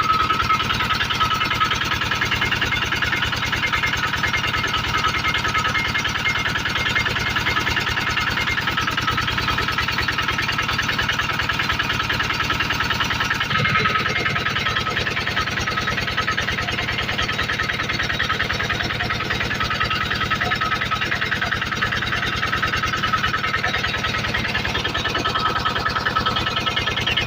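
Engine-driven generator running steadily, a continuous fast-pulsing drone. About halfway through its tone shifts briefly.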